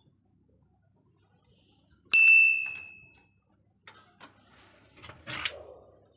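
A hanging brass temple bell struck once, ringing with several high tones that fade over about a second. Then a few light clicks and a short metallic rattle, as a metal-framed glass door is unlatched and opened.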